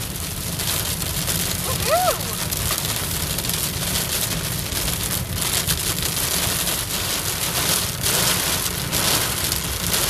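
Heavy rain drumming on a moving car's windshield and roof, heard from inside the cabin over a steady low road rumble, with gusts of heavier rain coming and going. A brief squeak rises and falls about two seconds in.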